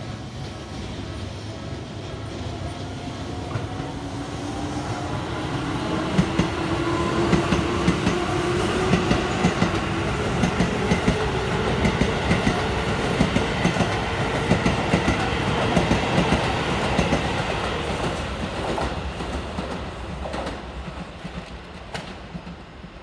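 Keisei 3700-series electric commuter train passing over a level crossing. The traction-motor whine rises in pitch as it accelerates, over a steady run of wheel clatter on the rail joints. The sound swells and then fades as the cars go by.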